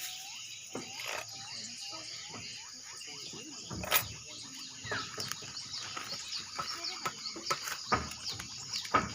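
Swiftlets twittering: a steady stream of many short, quick chirps, with a few sharp clicks, the loudest about four seconds in.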